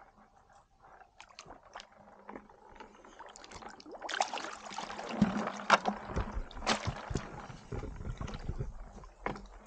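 Water splashing and sloshing as people wade through shallow, muddy canal water, with a bucket moved through the water. It grows louder about four seconds in, with a few sharp splashes, then eases off.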